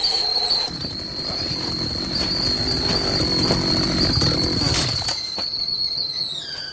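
Stovetop kettle whistling: one steady high whistle that slides down in pitch and dies away near the end. A low rumble sits under it for most of the first five seconds.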